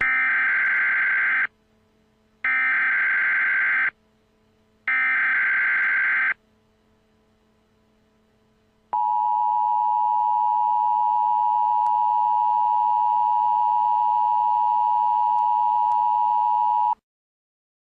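Emergency Alert System (EAS) tones: three bursts of the SAME header's digital data tones, each about a second and a half long with about a second between them. Then the two-tone attention signal holds steady for about eight seconds and cuts off suddenly.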